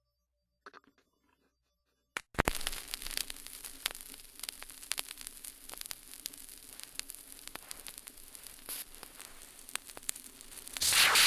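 Vinyl record surface noise: the stylus sets down with a thump about two seconds in, then steady hiss and crackle of the lead-in groove with scattered clicks. Music begins, much louder, just before the end.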